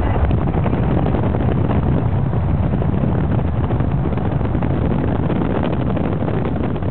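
Steady road and wind noise inside a car moving at highway speed: a loud, even low rumble.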